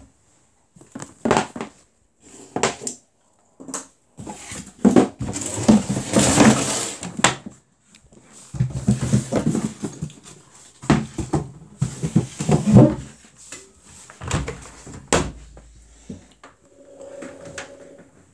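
Irregular clicks, knocks and rustling as the door of a Samsung WF80F5E0W4W front-loading washing machine is unlatched and swung open once the cycle has finished.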